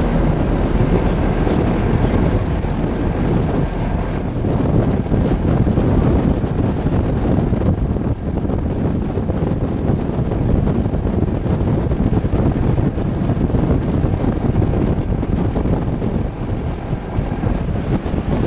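Wind buffeting the microphone on the deck of a moving passenger ferry, a steady low rumble mixed with the rush of the boat through the water.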